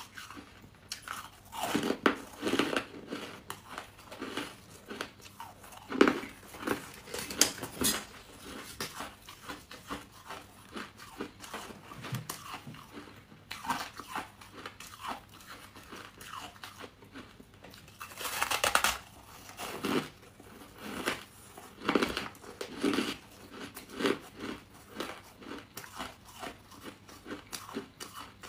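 Close-up biting and chewing of crunchy buckwheat chunks: an irregular run of crisp crunches, with several louder bites among them.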